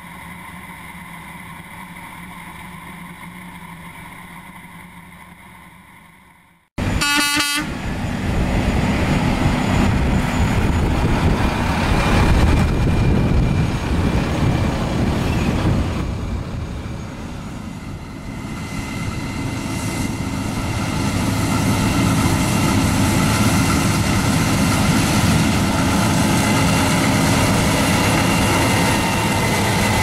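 Case IH 8120 combine harvester running steadily while threshing wheat, then, after an abrupt cut, much louder heavy diesel engine noise from a grain semi-truck and a combine. A short horn toot sounds just after the cut.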